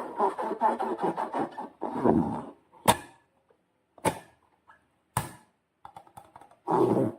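Slime being squeezed and worked by hand, giving dense wet crackling and squelching, then three sharp snaps about a second apart, and more squelching near the end.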